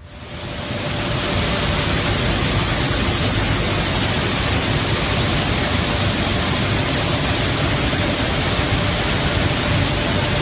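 Maize flour mill machinery running in the mill hall: a loud, steady, even noise with a faint steady hum in it, swelling up over the first second.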